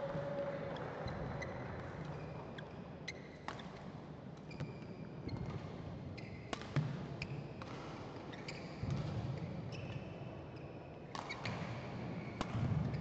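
Badminton rally: sharp racket strikes on the shuttlecock at irregular intervals, with short high squeaks of shoes on the court mat and dull thuds of footsteps.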